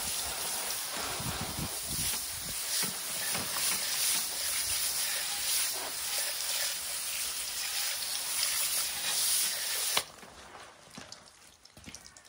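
Garden-hose spray nozzle hissing as it sprays water onto a car's alloy wheel and tyre, then shutting off suddenly with a click about ten seconds in, after which only faint taps remain.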